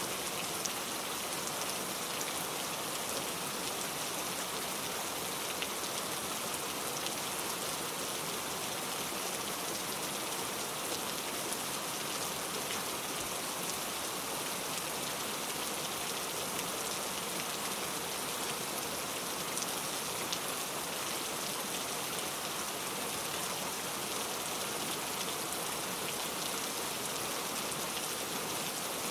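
Heavy rain falling steadily, a dense even hiss of drops with scattered individual drop ticks.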